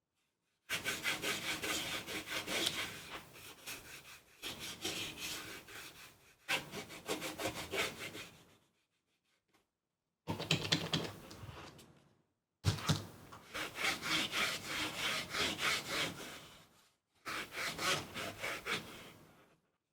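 Cleaning patch soaked in acetone scrubbed hard against a polymer pistol frame, rapid back-and-forth rubbing strokes in several bouts with two short pauses, wiping off oil, sweat and dirt before the grip tape goes on.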